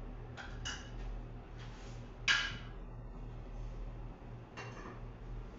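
Dishes and utensils clinking as they are handled: a few light clicks in the first second or so, a sharper ringing clink a little over two seconds in, and another near the end, over a steady low hum.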